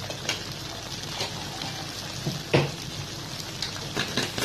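Chicken pieces bubbling and sizzling in their own juices in a steel kadai, a steady hiss broken by scattered pops, the loudest about two and a half seconds in.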